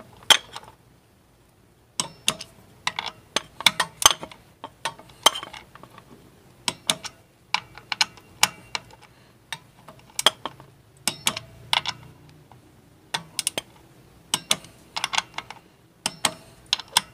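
Torque wrench ratchet clicking in short strokes, sharp clicks in irregular small bursts, as the clutch spring bolts are run down and torqued to a light 96 inch-pounds.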